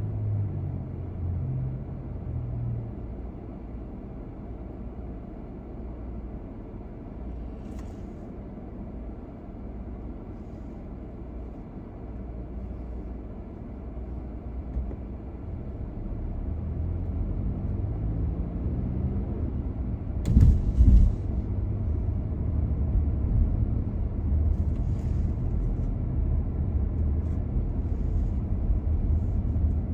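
Car road noise: a steady low rumble of engine and tyres that grows louder past the halfway point as the car picks up speed. Two loud thumps come close together about two-thirds of the way in.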